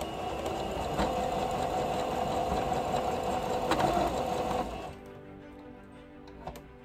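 Singer Fashion Mate electric sewing machine running and stitching for about five seconds, then stopping.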